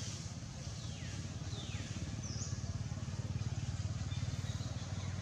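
Steady low rumble of an engine running, with two short high calls falling in pitch about a second and a second and a half in.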